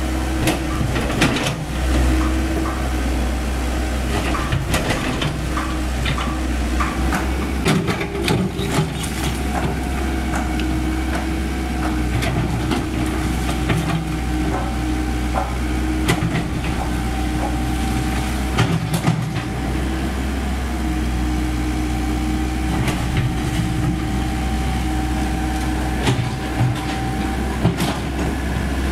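Komatsu PC78US mini excavator's diesel engine running steadily under load as it demolishes a brick wall, with a steady tone over the engine hum. Scattered knocks and crashes of breaking masonry and falling debris come throughout.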